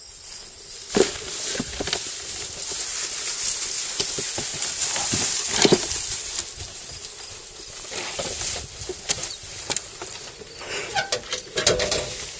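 Leafy plant stalks rustling and crackling as they are pulled and handled in a garden bed, with a number of sharp snaps and cracks.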